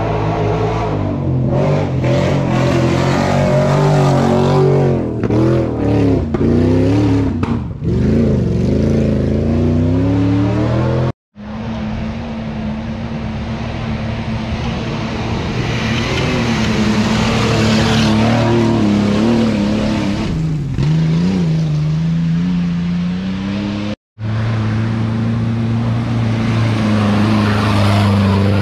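Off-road 4x4 engine revving, its pitch rising and falling with the throttle. The sound breaks off suddenly twice, about 11 and 24 seconds in.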